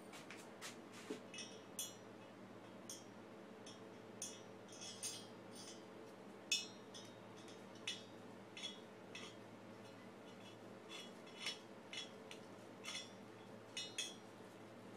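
Irregular light metallic clinks and taps of a hand tool and steel studs being handled and fitted at a small moped engine's aluminium cylinder head, the sharpest about six and a half seconds in.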